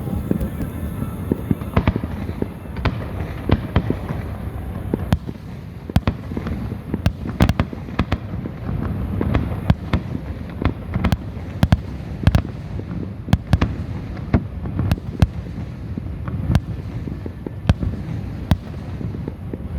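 Fireworks going off, with many sharp cracks and pops at irregular intervals over a continuous low rumble of more distant bursts.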